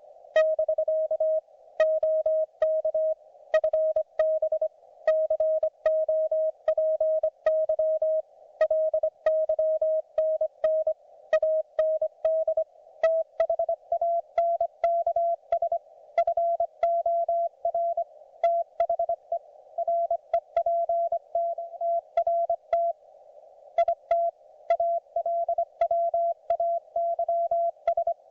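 Morse code (CW) from a QRP ham radio transceiver: a single steady tone keyed on and off in dots and dashes over narrow-band receiver hiss, with a faint click at the start of each element. About halfway through, the tone steps slightly higher in pitch.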